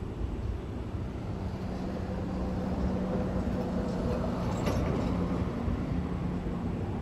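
Steady low rumble of a running vehicle, with a faint steady hum and one short click about four and a half seconds in.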